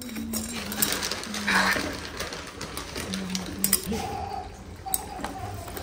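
Metal spatula stirring noodles and vegetables in an iron kadhai, with scattered light clinks and knocks against the pan.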